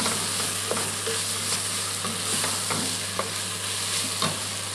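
Julienned onions and chorizo sizzling steadily in a stainless steel pot as a wooden spoon stirs them, scraping and knocking against the pot now and then. The salted onions are softening and starting to catch and caramelize on the bottom.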